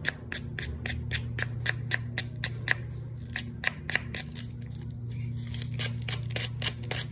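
Sandpaper rubbed by hand over a small metal part, quick scratchy strokes at about five a second, scuffing off rust and old paint.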